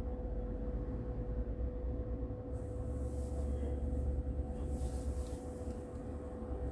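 Steady low rumble of background room noise with a constant faint hum, and a light hiss in the middle; no voice.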